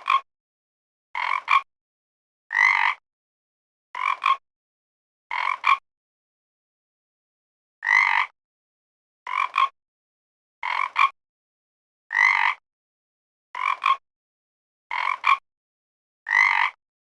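A frog croaking in short, regular calls, about one every second and a half, with a pause of about two seconds near the middle. Some croaks are one rasping note and others break into two quick parts.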